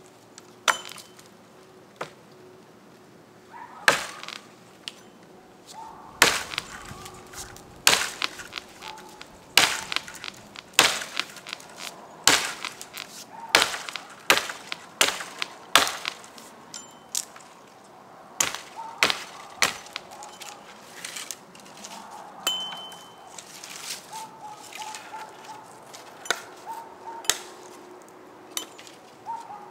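A Rinaldi "American" boy's axe, a small trade-axe pattern, chopping into a fallen beech log: a steady run of sharp chops, about one blow a second.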